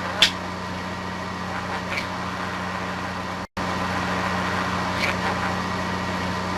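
Budgerigar giving a few short, sharp high chirps over a steady low hum and hiss. The sound cuts out completely for a moment about halfway through.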